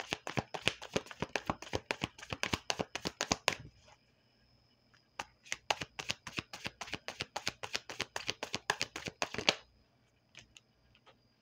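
Tarot deck being shuffled by hand: a rapid run of card clicks for about three and a half seconds, a short pause, then another run of about four seconds. A few lone clicks follow near the end.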